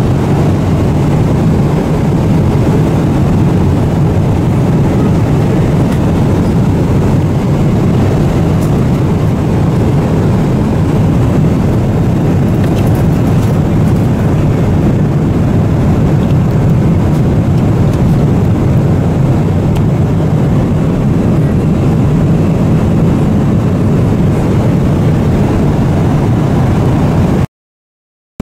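Steady cabin noise of a Boeing 777-300ER in flight: a constant low rumble of airflow and engines, broken by a silent gap of under a second near the end.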